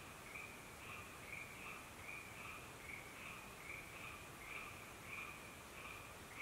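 Faint night chorus: a short chirping call repeating about two to three times a second, over a low steady hiss.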